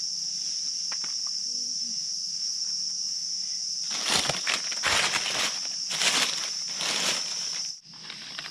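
Steady high-pitched drone of forest insects. From about halfway, crunching, rustling footsteps through dry leaf litter come in every half second or so. Near the end everything drops out for a moment, then the drone returns quieter.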